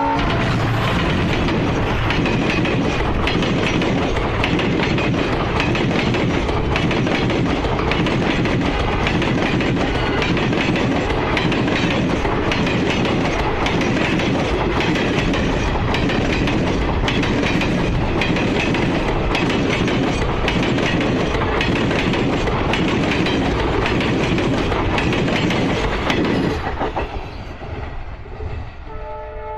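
Passenger coaches of an express train rushing past at full speed, a loud, steady rush with wheels clattering rapidly over rail joints. It falls away about 26 seconds in as the end of the train goes by.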